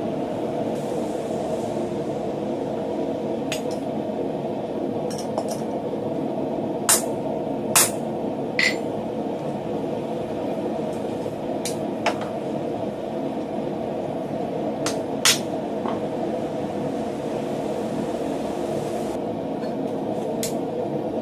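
Hammer blows on a handled hole punch driven into a red-hot steel bar on a swage block: sharp metallic hits at irregular intervals, the loudest three close together about a third of the way in, over a steady drone.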